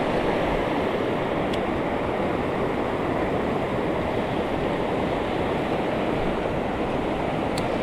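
Steady rushing of mountain stream water.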